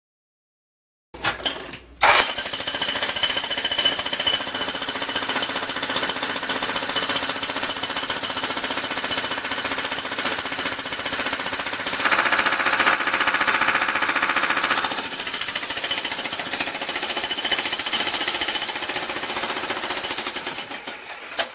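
Corded electric demolition hammer chiselling up a concrete floor slab, a fast, continuous hammering. It starts with a short burst just after a second in, runs steadily from about two seconds, and sounds harsher for a few seconds past the middle.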